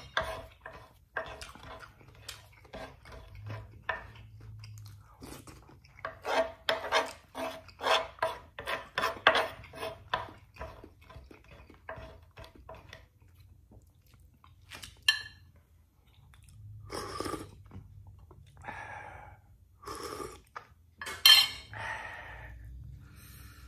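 Metal spoon scraping and tapping on a wooden cutting board in rapid runs of short strokes, gathering up spilled rice grains. Later come a few separate, louder scrapes and clatters.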